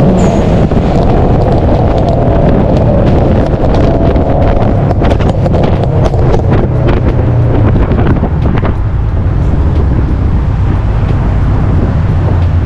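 A car driving, its engine and road noise mixed with heavy wind buffeting on the microphone, with scattered sharp clicks through the middle.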